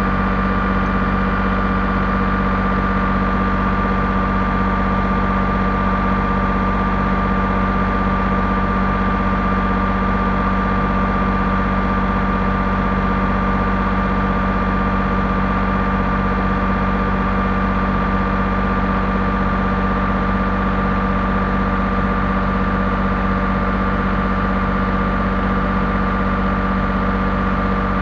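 Bulldozer engine idling steadily: a constant low drone with an even high whine over it.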